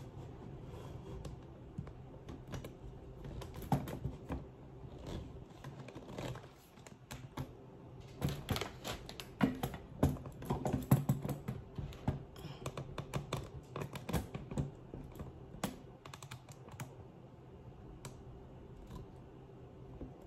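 Irregular light clicks, taps and knocks of objects being handled and set down on a kitchen countertop, coming thickest about halfway through, over a faint steady hum.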